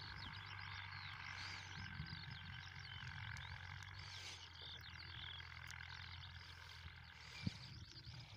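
Faint, steady low drone of a distant Steyr 8073 tractor engine pulling a plough, with many short chirping bird calls over it. A single sharp thump about seven and a half seconds in.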